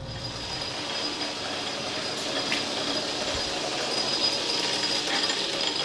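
South Bend metal lathe starting up and running steadily with its chuck spinning. A steady mechanical whirr with a constant high whine swells briefly as it comes up to speed.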